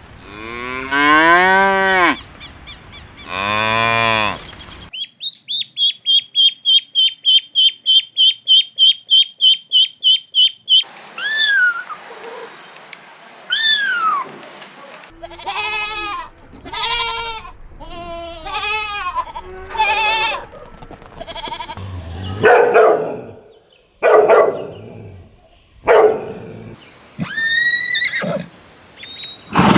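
A run of different farm animal calls one after another: a cow mooing twice, then about six seconds of fast, evenly repeated high chirps, then a series of shorter, varied animal calls.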